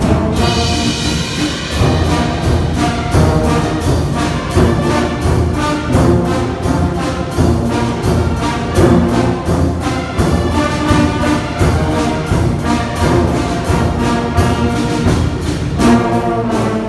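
Brass band playing a tune over a steady drum beat.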